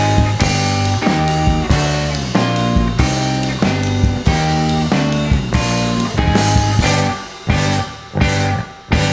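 Live rock band playing an instrumental passage: guitars and drum kit on a steady beat, breaking into a few separated stop hits near the end.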